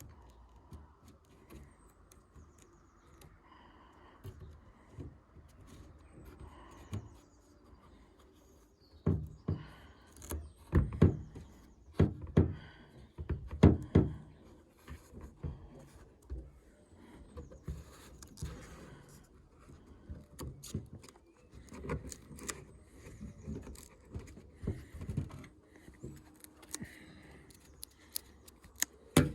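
Scattered knocks, clicks and rustling from hands fitting a new rubber seal to a Land Rover Defender's bulkhead vent flap, with a cluster of louder knocks about halfway through.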